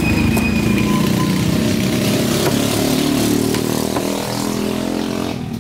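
A small engine running close by, its pitch rising and falling, stopping abruptly near the end.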